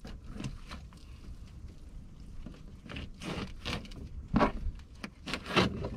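Fillet knife cutting along a palani's (surgeonfish) backbone and skin, a handful of short scraping strokes, over a low wind rumble on the microphone.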